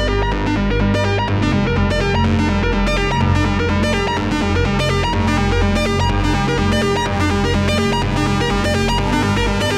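Electronic dance music in a trance style: a plucked, distorted guitar-like lead over a steady beat and bass line.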